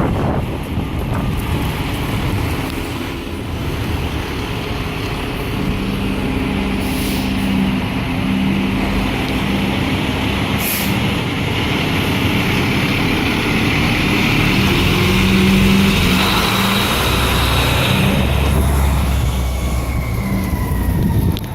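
Fire trucks driving out with their diesel engines running, with short hisses typical of air brakes about two and eleven seconds apart. Wind is buffeting the microphone.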